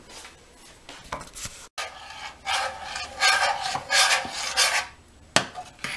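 A metal fork scraping and tossing drained whole wheat spaghetti in a plastic colander: about five scraping strokes roughly half a second apart in the middle. A sharp click comes near the end.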